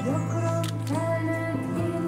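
Music playing: a slow melody of long held notes, changing note about once a second.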